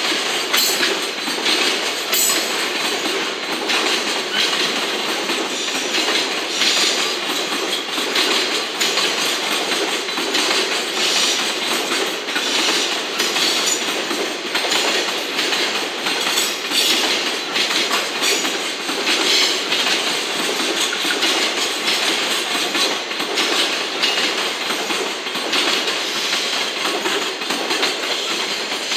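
Loaded container flat wagons of a freight train rolling past at speed. It is a continuous loud rumble and hiss of steel wheels on rail, with a running clickety-clack of wheels crossing the rail joints.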